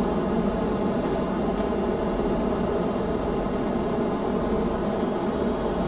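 Steady room noise: an even hum and hiss with no distinct events.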